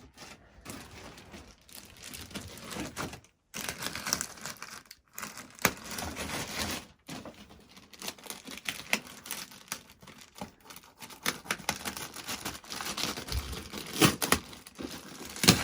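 Packaging material crinkling and tearing as it is unwrapped by hand, in irregular crackles with a few short breaks, sharpest near the end.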